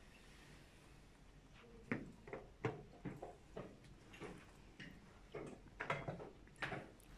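Chess pieces being set down on the board and chess clock buttons tapped in quick blitz play: a rapid, irregular string of short clicks and knocks, starting about two seconds in.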